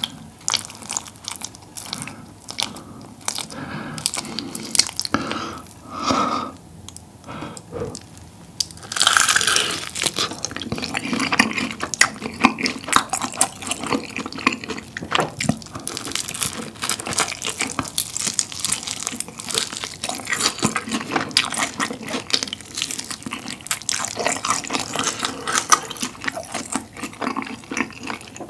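Close-miked crunching and chewing of fried chicken coated in spicy tteokbokki sauce, bite after bite. The loudest crunch comes about nine seconds in.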